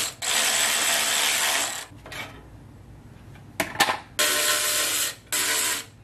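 Ryobi cordless power tool whirring in bursts as it spins bolts on the truck's underbody skid plate: one run of about two seconds, a pause with a few sharp clicks, then two shorter runs.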